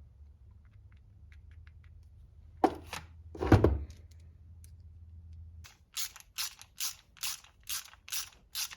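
Metal tools and parts knocking twice on a workbench, then a hand tool ratcheting in short strokes about twice a second while fasteners on an RC transmission case are turned in. A faint low hum stops about halfway through.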